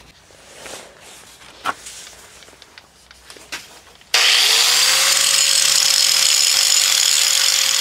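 A few light clicks as a cast iron casting is handled and clamped in a bench vise, then about four seconds in a grinder starts suddenly, its whine rising briefly and then running steady as it grinds the rough cast iron to clean up the casting.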